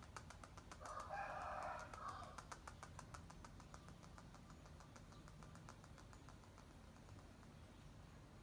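A faint rooster crow lasting about a second, starting about a second in, over a run of rapid, faint, evenly spaced clicks that fade out after about six seconds.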